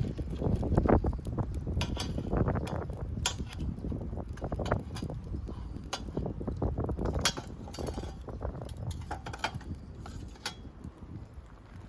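Metal cooking utensils clinking and scraping against metal cookware in irregular sharp clicks, over a low rumble of handling noise.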